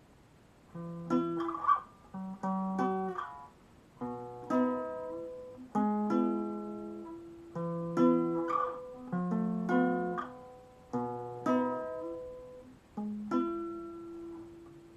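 Guitar playing a song's introduction: chords picked in a steady rhythm, each ringing out and fading, beginning about a second in.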